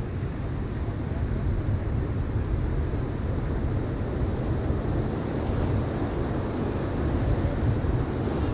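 Ocean surf breaking steadily on a sandy beach, with wind buffeting the microphone in a low rumble.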